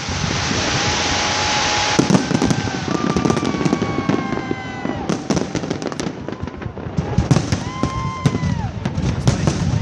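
Fireworks display: a steady hissing rush for about two seconds, then dense crackling pops mixed with several whistling shells whose tones slowly fall in pitch.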